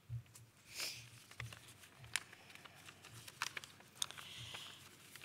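Faint rustling and scattered small clicks of papers being handled at a lectern microphone, with a soft breath-like rustle about a second in and another near four seconds.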